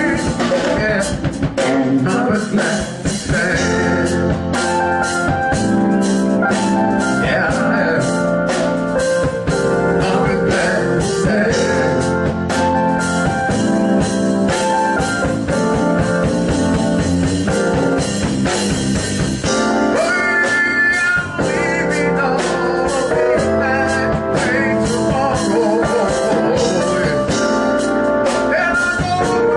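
Live band playing bluesy rock music, with guitar, a steady drum beat and a lead melody line that bends in pitch.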